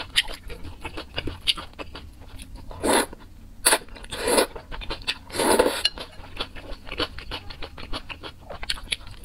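Close-miked eating of thick noodles with chopsticks: a run of small wet chewing and mouth clicks, broken by three louder slurps of noodles about three, four and five and a half seconds in.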